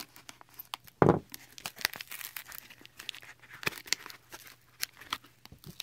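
Thick packing tape and plastic wrap on a small cardboard package being cut with a knife and pulled apart, crinkling and tearing in short bursts of crackles and clicks, with one sharp knock about a second in.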